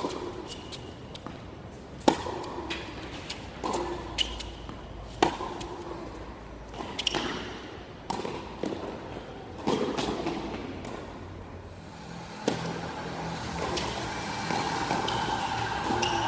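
Tennis rally on a hard court: the ball is struck by racquets and bounces, with a sharp pock every one to two seconds. A steady hum joins in about three quarters of the way through.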